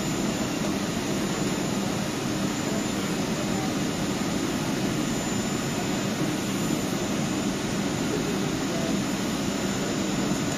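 Steady mechanical hum and rush of a double-deck electric regional train standing at the platform, its fans and ventilation running, in an underground station hall.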